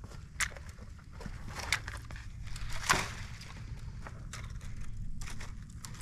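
Wooden matches scratched against the side of a matchbox: several short, sharp strikes, the loudest about three seconds in, over a steady low rumble.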